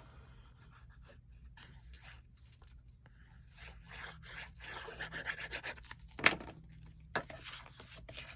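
Cardstock and paper being handled, slid and rubbed on a tabletop, with two sharp taps about six and seven seconds in.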